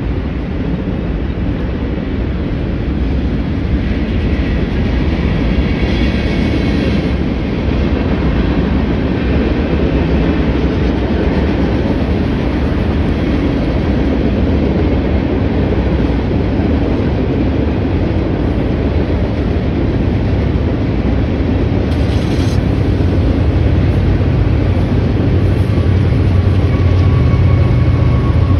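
Freight train cars rolling past on the rails, wheels rumbling and clacking steadily, with a faint high wheel squeal about five seconds in. Near the end the low drone of a diesel locomotive grows louder as it draws near.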